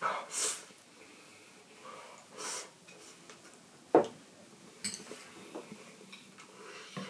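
A person eating hot pot at a table: two short breathy noises, near the start and about two and a half seconds in, then a sharp knock of tableware about four seconds in, with a few lighter clicks after.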